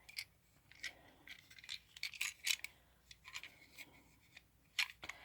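Faint, scattered clicks and light rustles of small plastic pieces being handled and turned over in the hands.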